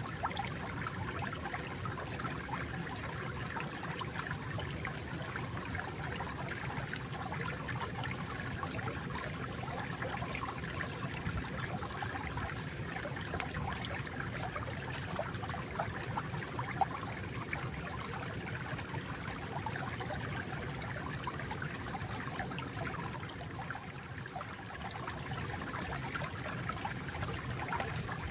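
Gentle flowing water, a small stream trickling and babbling steadily, dipping slightly in level a few seconds before the end.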